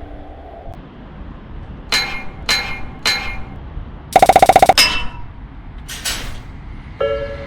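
Three bright clinking strikes about half a second apart, each ringing briefly. A short rapid rattle follows, then one more strike.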